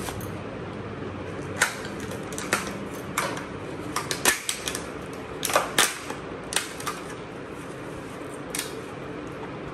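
Thin clear plastic clamshell cake container being handled and prised open, its plastic giving irregular sharp clicks and crackles.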